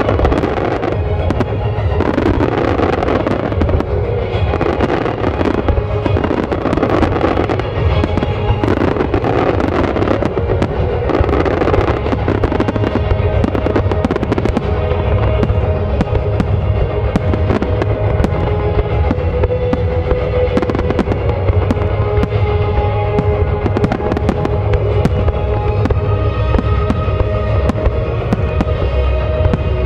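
Fireworks display: aerial shells bursting and crackling in quick succession, over music playing.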